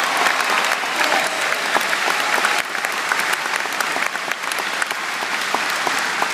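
A large arena crowd applauding and cheering: dense, sustained clapping.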